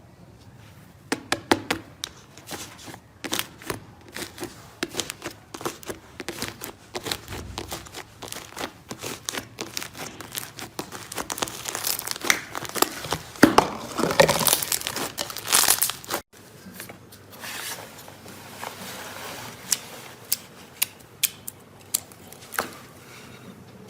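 Slime being squished and stretched by hand, making irregular sticky clicks and crackles that come thickest around the middle. About 16 seconds in the sound cuts off abruptly, then sparser clicks follow.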